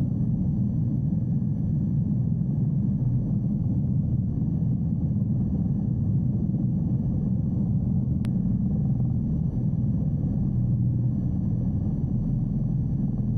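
Eurocopter EC 120B Colibri helicopter's turboshaft engine and main rotor running, heard inside the cockpit: a steady low rumble with a faint high whine. There is a single brief click about eight seconds in.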